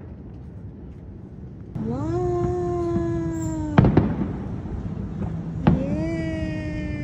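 Distant fireworks going off, with several sharp bangs. Between them are two long wailing tones of about two seconds each, each rising quickly and then slowly falling in pitch.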